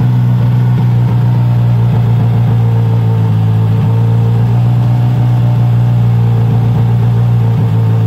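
Skoda Fabia R5 rally car's 1.6-litre turbocharged four-cylinder engine idling steadily.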